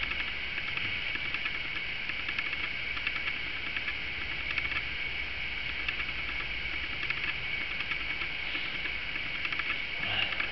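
Small clicks and scrapes of hands and a tool working at a motorcycle engine's spark plugs, over a steady hiss.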